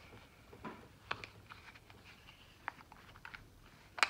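Bit screwdriver turning a small screw in the handle of a Heeter POW folding knife: faint scattered clicks and scrapes of metal on metal, with a sharper click near the end.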